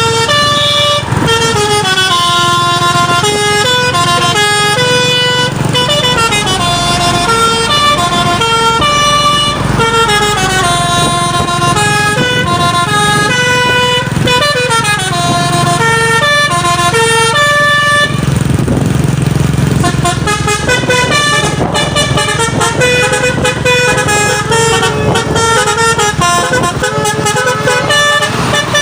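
Truck's basuri telolet horn, a multi-trumpet air horn, playing a tune note by note, loud and unbroken. About two-thirds of the way through, the notes weaken for a couple of seconds under a low rumble, then the tune carries on.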